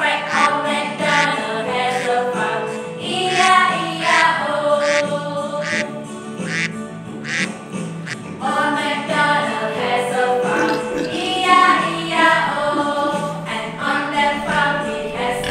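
A group of women singing a children's animal song with keyboard accompaniment and a steady beat, the singers imitating a duck's quacking.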